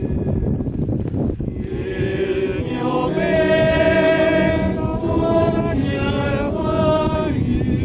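A choir singing slowly in long held chords, with a short break between phrases about five seconds in.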